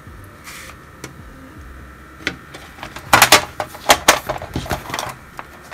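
A metal coloured-pencil tin being shut and handled: a loud clatter of tin on tin about three seconds in, another knock a second later, then a few lighter clicks.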